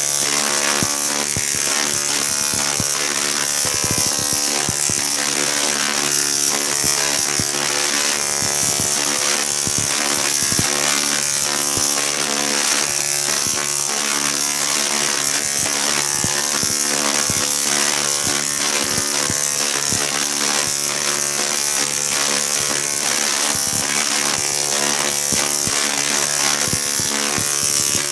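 A large dual resonant solid state Tesla coil (DRSSTC) firing continuously, its arcs making a steady pitched buzz broken by frequent sharp crackles as they strike out to ground.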